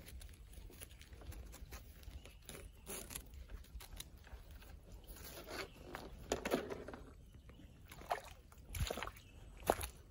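Footsteps in soft wet mud: a few irregular steps, the louder ones falling in the second half.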